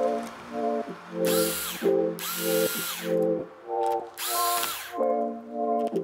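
Cordless electric screwdriver spinning in three short bursts, about a second in, about two seconds in and about four seconds in, each with a motor whine that rises and then falls, as it backs out a laptop's motherboard screws. Background music plays underneath.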